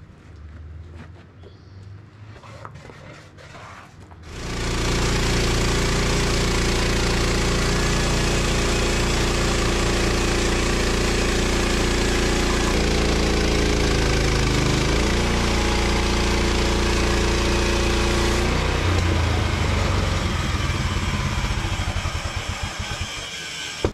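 Portable bandsaw sawmill's engine starting up abruptly about four seconds in and running steadily at full speed while the band blade saws through a log. Near the end it is throttled down and winds down with a slow pulsing beat, fading away.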